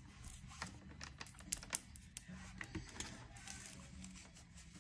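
Faint, irregular light clicks and taps, a few of them sharper around a second and a half in, over a low steady hum.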